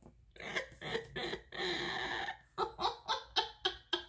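A woman laughing under her breath, first in breathy giggles, then in a run of short, quick laughs at about three a second in the second half.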